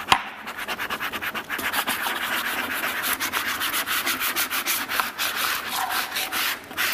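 Plastic squeegee rubbed back and forth over application tape in quick scraping strokes, several a second, pressing cut self-adhesive vinyl letters onto the tape so they lift off their backing paper.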